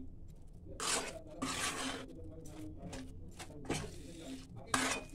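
Metal spatula stirring and scraping a thick, oily red chilli pickle paste around a frying pan, in a handful of irregular rasping strokes.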